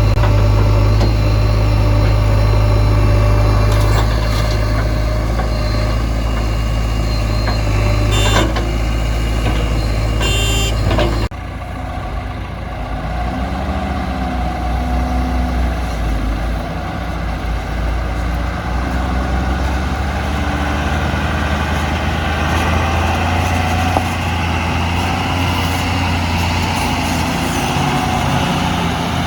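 Diesel engines of a backhoe loader and a tipper truck running steadily. A couple of short sharp knocks come in the middle. About eleven seconds in, the engine sound changes abruptly to a lower, less even running note.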